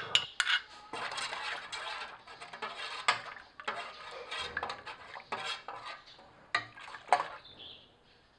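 A spoon stirring and scraping in a stainless steel pot of soy milk, clinking against the pot and a small cup as the dissolved calcium sulfate coagulant is stirred in, with sharper knocks every second or so; it dies away near the end.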